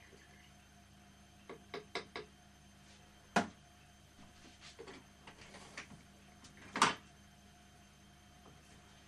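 A quick run of four light clicks, then a sharp knock, some soft rattling and a louder knock near the end: small metal parts of a toy steam traction engine and its burner being handled on a workbench.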